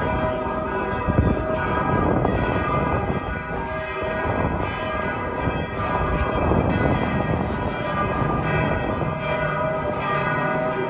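Bells of St. Vitus Cathedral ringing together in a full peal, overlapping strokes blending into one steady, continuous ringing.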